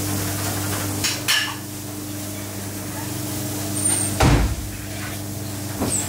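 Kitchen work at a wooden cutting board as raw pork loin is trimmed with a knife: a steady low hum runs underneath, with a couple of light knocks about a second in, a louder heavy thump about four seconds in and a smaller one near the end.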